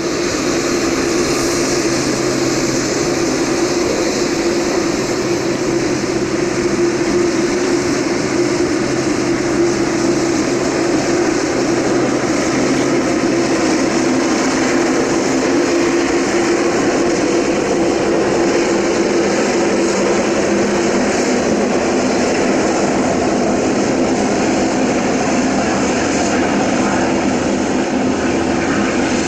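Jet airliner's General Electric GEnx-1B turbofans running steadily at low taxi thrust on a Boeing 787-8, a continuous engine hum and rush with no change in level.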